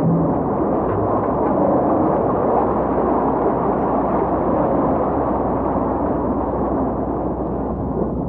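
Offshore tin-mining dredge machinery working the sea floor: a loud, steady, dense mechanical noise with no clear tone.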